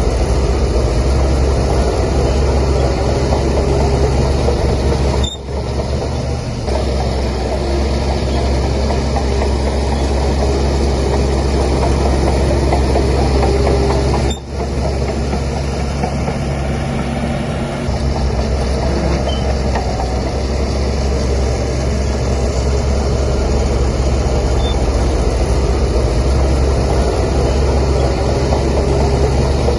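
Heavy bulldozer's diesel engine running steadily under load as it pushes soil, with a deep rumble throughout. The sound dips briefly twice, about five and fourteen seconds in.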